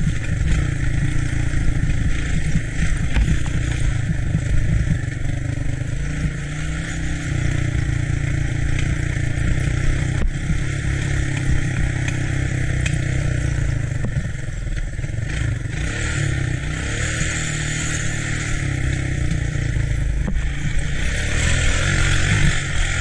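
An ATC three-wheeler's engine running steadily, with a heavy low rumble.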